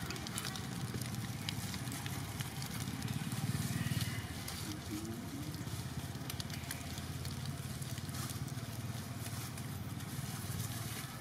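A steady low rumble with scattered faint crackles of dry leaves rustling as young monkeys wrestle on the leaf litter.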